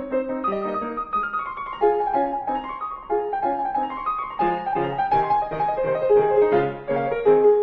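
Background piano music: a steady run of notes, often several sounding together.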